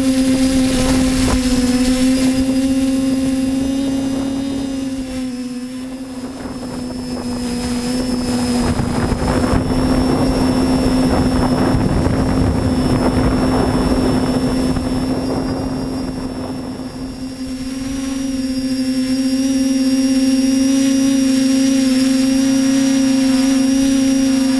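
A machine running with a steady, unchanging hum. A louder rushing noise swells through the middle and fades away again.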